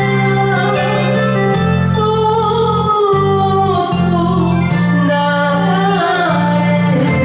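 A woman singing a Japanese enka ballad over a karaoke backing track, the bass moving note by note beneath her voice.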